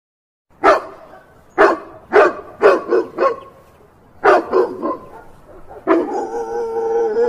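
Dog barking: about nine short, sharp barks in quick groups, then a longer steady pitched sound near the end.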